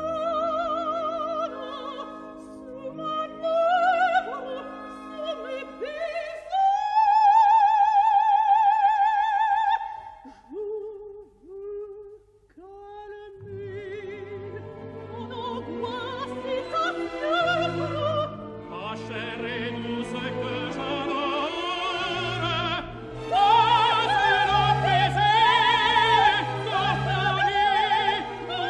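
Operatic singing with wide vibrato over an orchestra; a high note is held for a few seconds, followed by a brief quieter lull with short low phrases. The full orchestra then builds and gets louder in the last few seconds.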